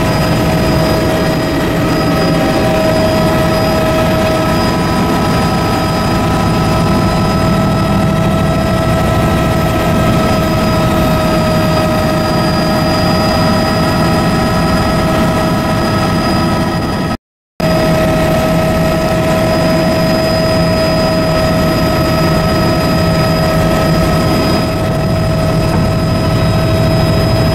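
Helicopter in flight: a steady, loud engine and rotor drone with a constant high whine over it. It cuts out completely for a moment partway through, then resumes unchanged.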